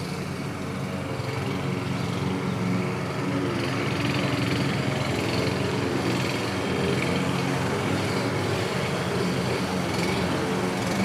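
Lawnmower engine running steadily at an even pitch.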